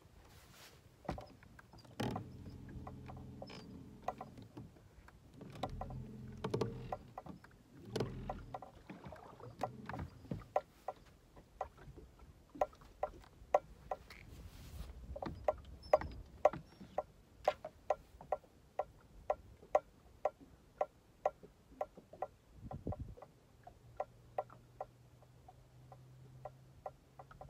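A bass boat's bow trolling motor humming in short runs. Between the runs comes a long series of light, evenly spaced knocks, about two a second.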